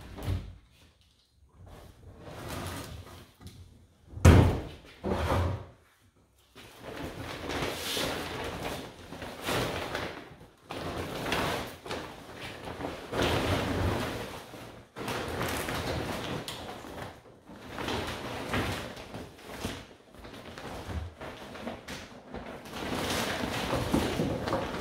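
Plastic wheeled compost cart's lid flipped open with a loud knock about four seconds in, followed by a second thud. Then a long stretch of rustling and crackling as a garden-waste bag of dry weeds and stems is tipped and shaken out into the bin.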